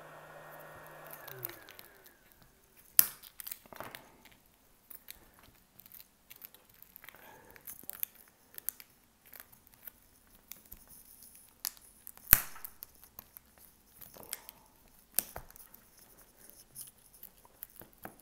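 A small motor's steady hum that drops in pitch and dies away about a second and a half in, then scattered sharp clicks, snaps and small crackles as shattered iPhone 13 back glass is pried and picked off its adhesive, three clicks much louder than the rest.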